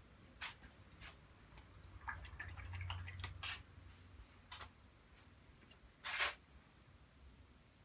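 Watercolour brush working wet paint: a few short, soft brushing and dabbing sounds at irregular intervals, the longest and loudest stroke about six seconds in.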